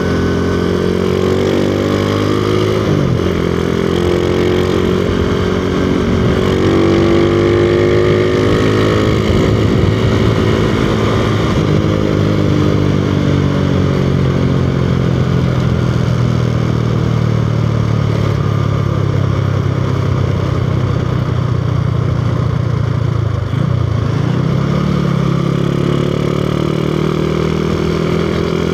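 Honda Revo Absolute's single-cylinder four-stroke engine running through a Tsukigi aftermarket exhaust while the bike is ridden, its note climbing with the throttle. The pitch drops briefly a few seconds in, then holds fairly steady. About 24 s in it dips and picks up again.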